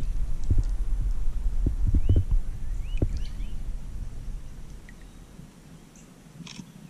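Low rumbling noise on the camera microphone with a few soft knocks, fading away after about four seconds. Brief faint bird chirps come about two and three seconds in.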